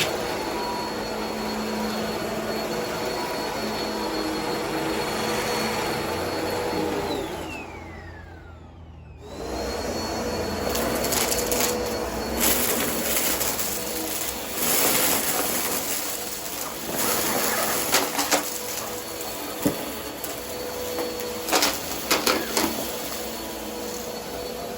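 Vacuum cleaner motor running with a steady high whine. About seven seconds in it is switched off, the whine falling away, and about two seconds later it is switched back on. From then on, bursts of crackling and sharp clicks come through as crunchy debris is sucked up from a dirty carpet.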